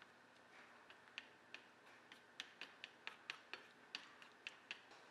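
Faint, irregular clicks and taps as chopsticks stir noodles in a simmering sauce in a frying pan: sparse at first, then about three or four a second after the first couple of seconds.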